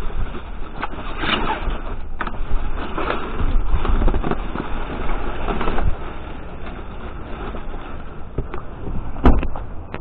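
Rummaging through rubbish in a dumpster: continuous rustling and handling noise with scattered knocks, and a sharp loud knock a little after nine seconds in.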